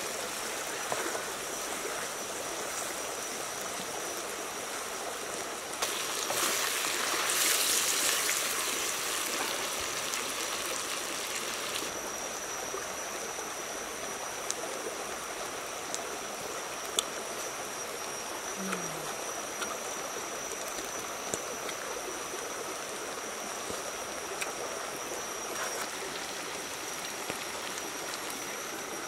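Stream water running steadily over rocks, with a thin steady high tone above it; the rush grows louder for a few seconds starting about six seconds in.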